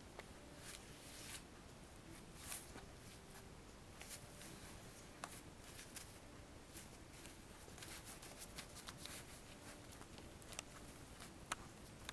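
Faint, scattered rustling of a folded newspaper and the bag's fabric as a kitten paws and grabs at the paper, with a few soft ticks from its claws.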